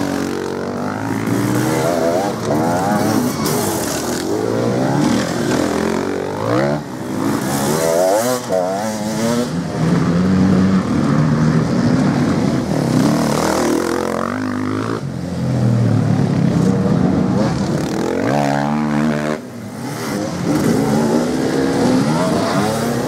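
Off-road enduro motorcycle engines revving up and dropping back again and again, several bikes in turn.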